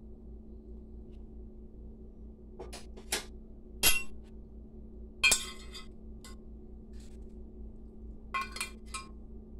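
A metal spoon and a glass baking dish clinking as they are handled and set down: a string of sharp clinks, the two loudest about four and five seconds in and a quick cluster near the end, over a faint steady hum.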